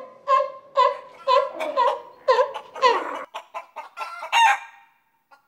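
Short clucking calls repeated about two or three times a second, with higher, louder squawks about four seconds in.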